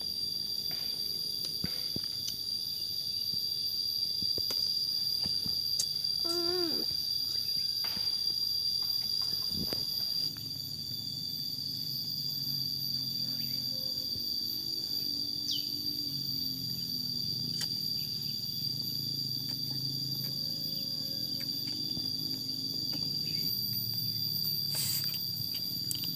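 Insects trilling steadily at one high pitch in forest undergrowth. A brief pitched call comes about six seconds in, and a low wavering hum joins at about ten seconds.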